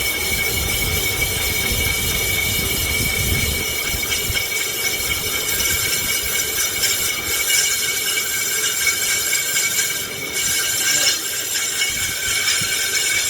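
Metal lathe running with a cutting tool turning a bike's brake drum, the metal-on-metal cutting giving a steady high-pitched whine over a continuous hiss.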